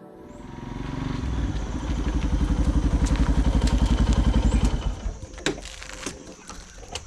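Motorcycle engine running with a rapid, even low throb that builds over the first couple of seconds, then drops away about five seconds in. A few sharp clicks and knocks follow.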